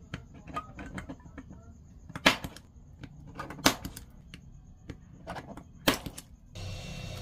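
Small repair tools clicking and tapping against a phone, with three sharper, louder knocks about two, three and a half and six seconds in. Near the end a steady whirring hum starts suddenly.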